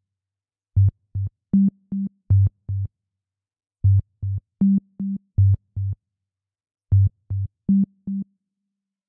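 Background music: a bouncy line of short, detached low notes hopping between two pitches, played in phrases of about six notes with a pause of about a second between phrases.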